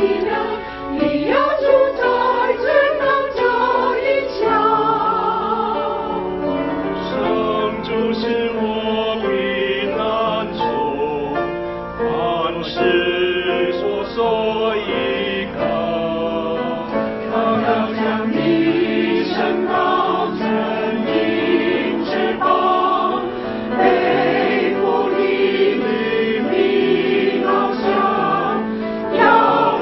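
Mixed church choir of men and women singing a hymn in Chinese, holding long notes with vibrato.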